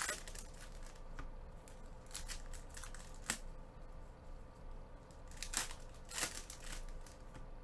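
Foil trading-card pack wrappers being torn open and crinkled by hand, in a series of short rips and rustles with a sharp crackle about three seconds in.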